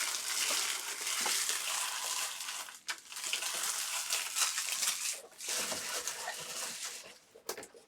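Rustling and crinkling of trading card packaging and cards being handled, in three long stretches with short breaks between them.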